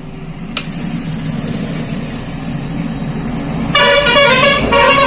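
Nova foldable 1000 W hair dryer running on mains power, a steady hum and rush of air from its motor, which has just been oiled with sewing-machine oil to cure a noisy bearing. About four seconds in, a vehicle horn honks twice.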